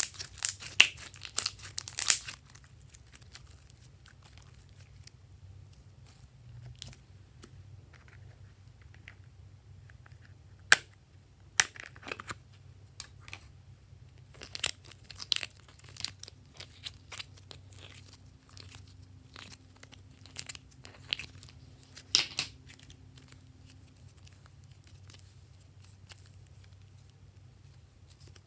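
Hands squishing sticky slime, with a quick run of crackly, popping clicks in the first two seconds. After that come scattered sharp clicks and short crackles as soft clay is pressed and pried out of a plastic palette, with quiet stretches between.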